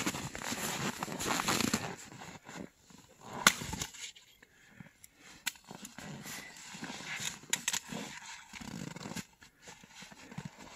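Axe splitting firewood logs on a chopping block: several sharp chops a couple of seconds apart, the loudest about a third of the way in. Between the strikes come rustling and the handling of the split pieces in snow.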